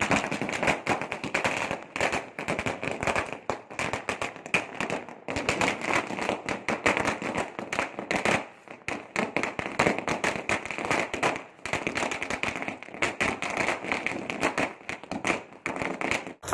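Firecrackers bursting in a rapid, continuous chain of sharp bangs and crackles, many a second, with a couple of brief lulls.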